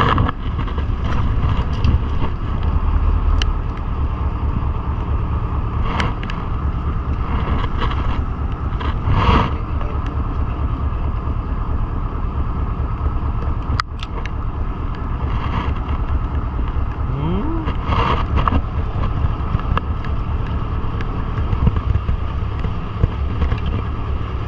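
A boat's engine running steadily, a continuous low rumble with a few sharp knocks and clicks over it.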